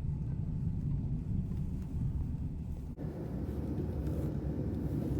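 Wind buffeting the microphone: a steady low rumble with no pitch to it, with a brief dropout about three seconds in, after which it sounds a little brighter.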